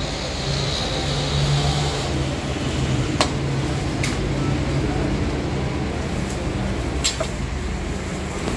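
Busy food-stall background with a steady low hum and some voices, and a few sharp clinks of a metal serving spoon against the pot and plate, about three, four and seven seconds in.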